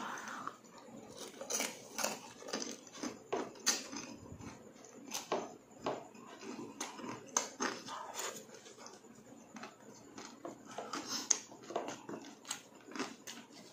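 Close-miked chewing and lip-smacking of pork innards and rice eaten by hand, a run of short, wet mouth clicks and smacks at irregular intervals.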